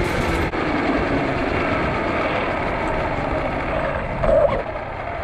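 Road traffic noise: vehicles running steadily, with a brief louder swell about four seconds in.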